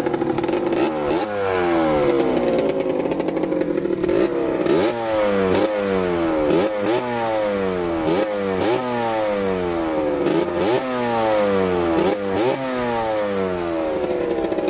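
90cc two-stroke dirt bike engine with a Yasuni exhaust, revved in short repeated throttle blips, each rev rising sharply and sagging back. The blips come about twice a second and fall into a steady rhythm from about five seconds in.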